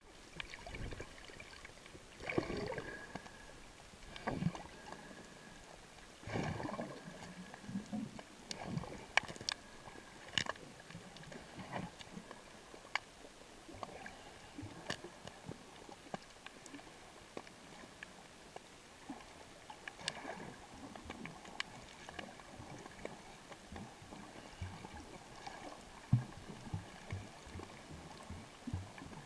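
Underwater sound picked up through a camera's waterproof housing: a muffled wash of moving water with scattered sharp clicks and cracks, and a few louder swells of water noise in the first seconds.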